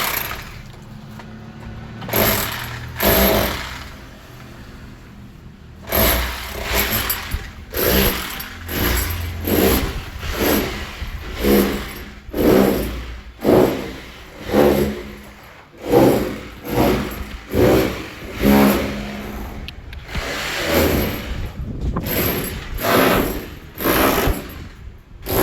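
A power tool running in repeated short bursts, roughly one a second, from about six seconds in, after a few scattered bursts earlier.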